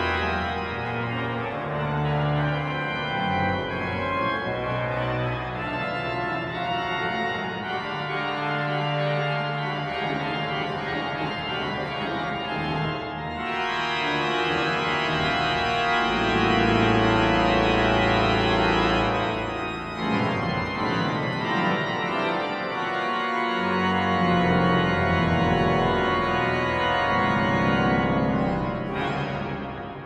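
Organ playing dense, loud sustained chords, with deep bass notes coming in and dropping out twice, then dying away near the end.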